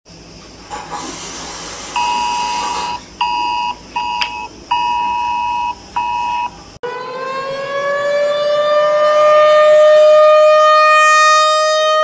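Emergency alert system alarms. First a hiss like running water, then a series of beeps of uneven length on two notes sounding together. About seven seconds in it cuts to a siren that winds up in pitch and holds a steady, loud wail.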